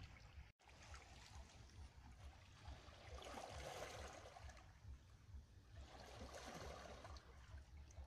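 Faint small waves lapping and trickling among shoreline rocks, swelling softly twice, about three and six seconds in, over a low rumble.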